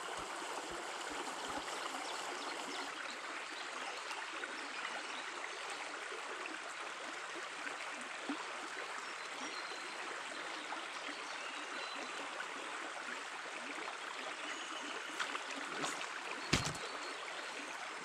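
Small forest stream flowing, a steady rush and babble of water. A few brief knocks sound near the end.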